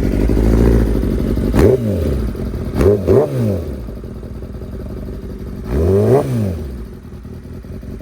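2016 Kawasaki ZX-10R's inline-four engine, fitted with an M4 slip-on exhaust, idling and blipped three times: each rev rises sharply and falls back to idle, the last one a few seconds after the first two.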